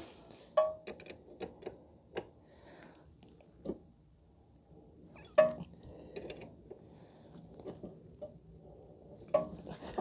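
Scattered metallic clinks and knocks from hands and tools working a new brake caliper and its brake line fitting. The loudest is a ringing clank about five seconds in.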